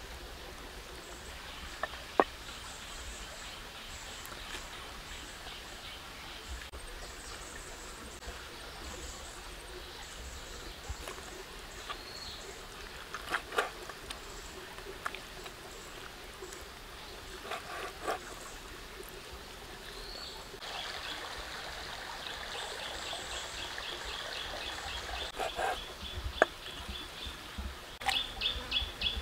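A cleaver knocking on a wooden chopping block a few separate times as pig intestine is cut, over steady outdoor background noise with rapidly repeated high chirping in the second half.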